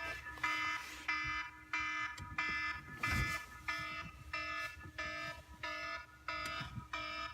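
Electronic alarm-like beeping: a chord-like tone pulsing evenly, about one beep every 0.6 seconds.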